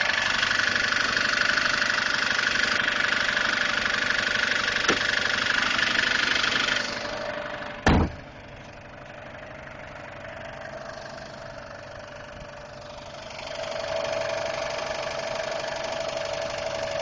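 A 2002 Subaru Impreza WRX's turbocharged flat-four engine idling, which the owner says has made a ticking noise for about two weeks. The sound drops quieter about seven seconds in, there is one sharp loud knock about a second later, and it grows louder again near the end.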